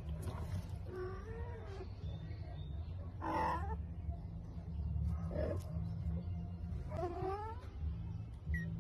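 Cat meowing: four short mews spaced roughly two seconds apart, the loudest about three seconds in.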